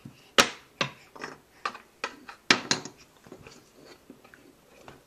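Wooden toy train pieces clacking against the wooden track and play table as they are handled: a string of sharp knocks, the loudest in the first three seconds, then lighter taps.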